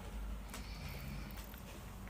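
A woman snoring in her sleep, a low rasping snore.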